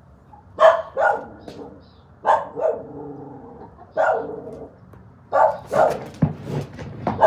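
A dog barking repeatedly, in pairs and short runs of sharp barks.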